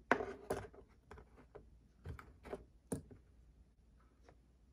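Light clicks and taps of small items being handled and set down in a felt-lined drawer organizer, about ten short knocks, loudest in the first second and again two to three seconds in.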